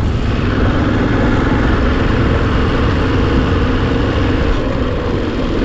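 Motorcycle cruising at steady speed: a continuous engine hum under wind and road noise.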